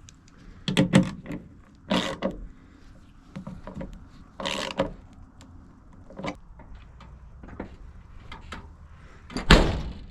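Square-body Chevy/GMC truck door being worked on its newly fitted striker: a series of latch clicks and clunks, ending with a loud slam near the end as the door shuts and latches properly.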